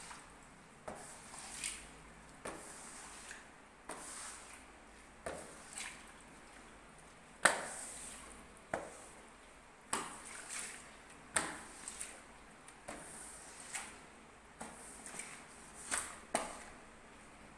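Rubber floor squeegee on a long handle pushing standing water across a wet marble tile floor. It makes a string of short, sharp strokes, roughly one a second and irregularly spaced.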